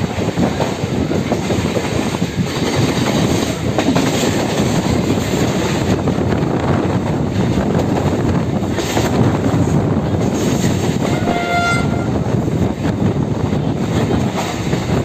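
Electric local train running at speed, heard from a window seat: a steady rumble and rattle of wheels on the track. A short horn note sounds about eleven seconds in.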